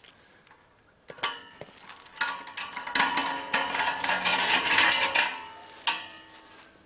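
Steel brew rig frame clattering and rattling as it is moved on its newly welded castor wheels, with a metallic ringing. It starts with a few sharp knocks about a second in, runs loudest in the middle and eases off near the end.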